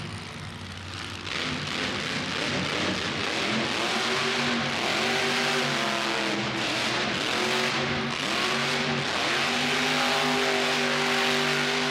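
Monster truck engine revving hard, its pitch swinging up and down several times before holding higher near the end. It grows louder about a second in.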